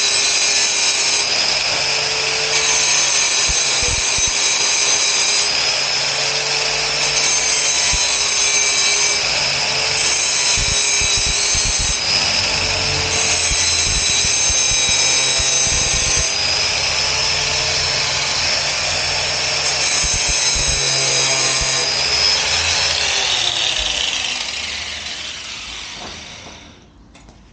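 Angle grinder running steadily with a high whine as it grinds a wheel's mudguard piece. Near the end it is switched off and winds down, its pitch falling as it stops.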